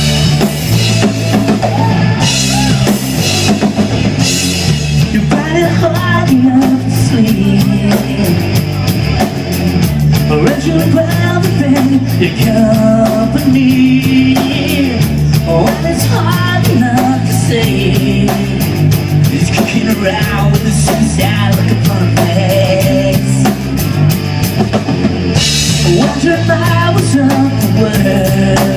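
Rock band playing an instrumental passage: drum kit with cymbal strikes over a steady bass line and melodic lines.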